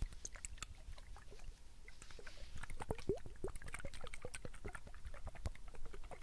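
Fingernails tapping and clicking on a glass Ferragamo Signorina perfume bottle held close to the microphone: many quick, irregular taps. Around the middle come a few short watery gurgles, the perfume sloshing inside the bottle.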